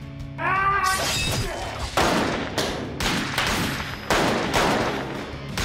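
Film gunfire: a rapid series of about a dozen shots, two to three a second, each with a short ring after it. A brief yell comes just before the shooting starts.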